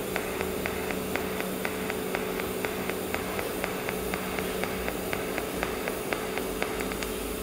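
Pulsed TIG welding arc from a Withus MULTI523CT multi-process welder set to pulse at 2 Hz. It gives a steady hiss and hum with a light tick about four times a second.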